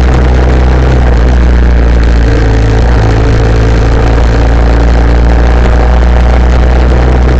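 A vehicle's engine running steadily at low speed in slow traffic, heard very loud and close through a camera mounted on the vehicle, with a deep steady hum under a noisy rush.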